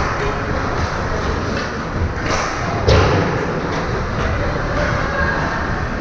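Youth ice hockey game in a rink: a steady wash of rink noise with two sharp knocks of play on the ice, the louder about three seconds in.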